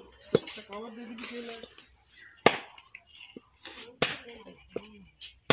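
Large catfish being cut into pieces on a boti blade: a string of sharp chopping knocks, three of them loudest and about a second and a half apart. Faint voices talk in the first second or two.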